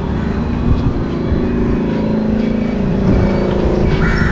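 A motor vehicle's engine running as it passes along the road, over steady street and traffic noise.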